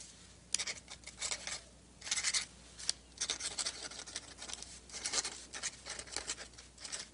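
Pen nib scratching on paper in short, irregular strokes as someone writes by hand.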